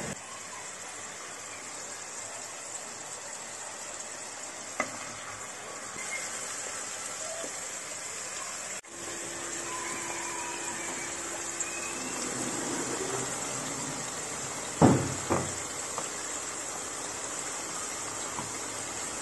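Hollowed-out potato halves deep-frying in hot oil: a steady sizzle. Two sharp knocks come in quick succession about three-quarters of the way through.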